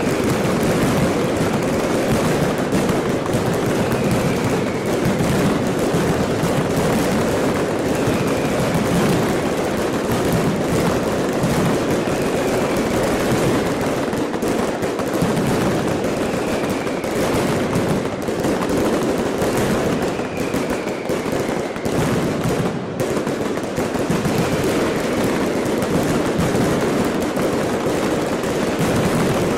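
Firecrackers going off in a dense, continuous crackle of rapid bangs.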